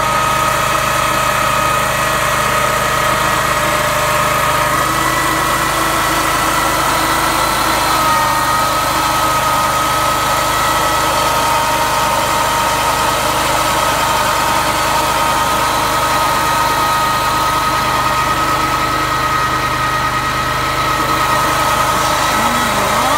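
Peterson WPF swingblade sawmill running, its engine and spinning circular saw blade making a steady high whine while the blade is pushed through a stump to cut a slab.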